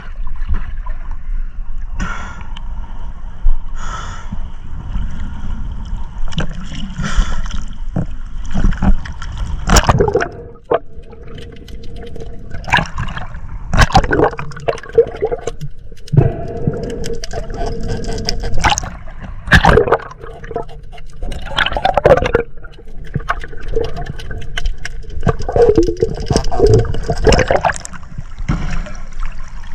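Water sloshing and gurgling, with irregular loud splashes.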